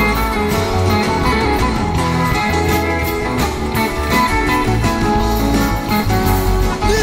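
Live rock band playing an instrumental passage, with electric guitar lines over bass, drums and cymbals.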